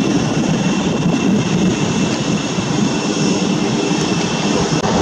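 Jet engines of an Airbus A320-family airliner running as it rolls along the runway: a steady rumble with a faint, even high whine above it.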